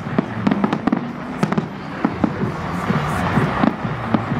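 Aerial fireworks display bursting: more than a dozen sharp bangs and crackles in quick, irregular succession, over a steady background din.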